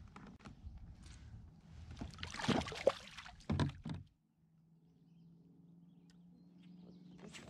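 Water sloshing and splashing beside a kayak while a small smallmouth bass is handled over the side, with a few sharper splashes near the middle. After about four seconds it drops to a quieter low steady hum.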